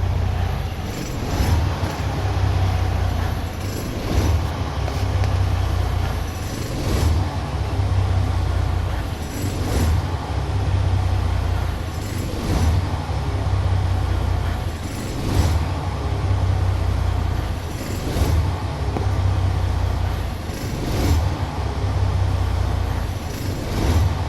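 Detroit Diesel heavy-truck diesel engine running at idle, with a short noise recurring about every three seconds. The truck has the fuel pump pressure fault named in the title.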